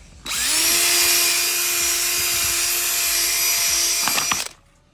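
Cordless drill spinning up and running steadily for about four seconds with a 5.5 mm bit boring a hole through a gloss black plastic side skirt extension, then stopping. The pitch rises briefly as it starts, then holds steady.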